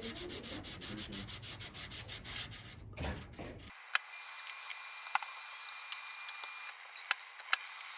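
Sandpaper rubbed back and forth by hand over a Nissan D21 thermostat housing in quick, rhythmic strokes, smoothing the surface. The strokes stop abruptly about three and a half seconds in, leaving a faint steady hiss with a few sharp clicks.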